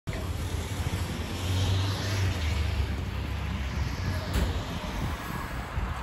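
Low, steady engine rumble of a motor vehicle, fading after about four and a half seconds.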